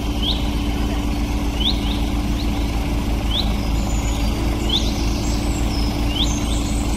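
Diesel engines of a farm tractor and a backhoe loader running steadily while the backhoe pushes a stuck, loaded sugarcane trolley. Birds chirp over the engine noise, short rising chirps about once a second, joined by higher calls in the second half.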